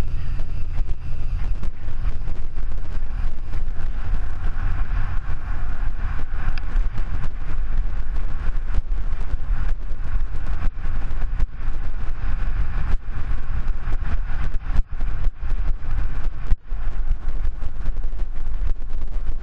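Steady wind rumble on a mountain biker's action-camera microphone while riding over grass and a dirt track, with frequent small knocks and rattles from the bike going over bumps.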